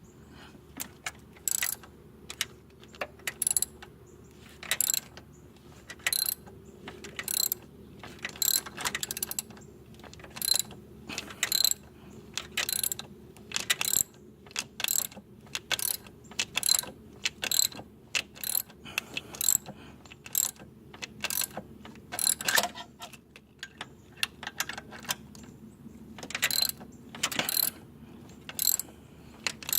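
Hand socket ratchet clicking in short bursts, roughly one stroke a second with a short pause about three-quarters of the way through, as the alternator's mounting bolts are run in and tightened.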